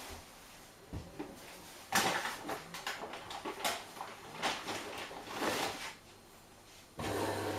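Clicks and knocks of hands working a Hoover H-Wash 500 washing machine, then, about seven seconds in, a steady low hum starts suddenly as the machine begins to run.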